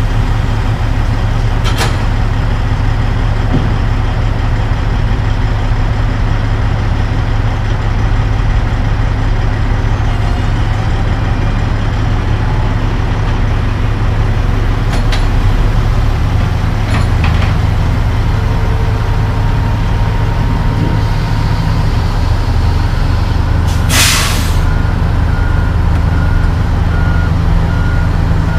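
Heavy diesel semi tractor engine running steadily at idle, its note shifting about halfway through. Near the end comes one short, loud hiss of released air, followed by a reversing beeper.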